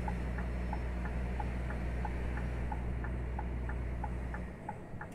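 Low drone of a Scania R440's 13-litre DC13 engine heard inside the truck cab, with a light regular ticking about three times a second. The engine drone drops away about four and a half seconds in.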